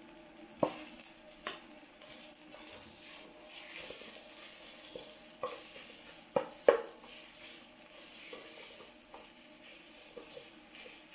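Food sizzling while it is stir-fried in a hot pot, a utensil stirring and scraping through it. Several sharp clinks of the utensil against the pot stand out, the loudest two close together a little past the middle.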